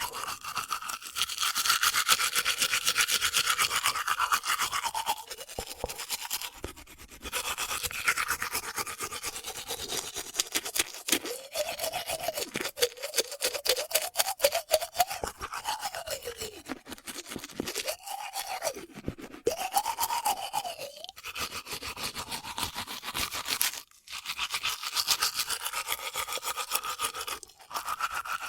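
A man brushing his teeth with his mouth open: fast back-and-forth toothbrush scrubbing. The pitch of the scrubbing rises and falls as the brush moves around the mouth, with a few brief pauses.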